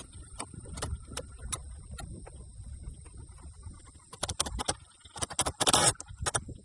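Wall-framing work on timber: irregular knocks and clicks of wood and tools being handled, a quick run of knocks about four seconds in and a short loud noisy burst just before the end, over faint steady high tones.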